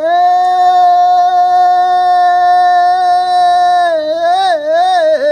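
A man singing unaccompanied. He holds one long, steady note for about four seconds, then bends it in a few quick wavering turns near the end.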